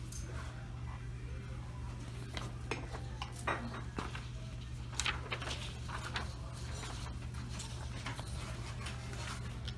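Restaurant dining-room background: scattered light clinks of dishes and cutlery over a steady low hum.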